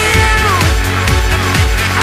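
Electronic dance music with a steady kick-drum beat of about two beats a second.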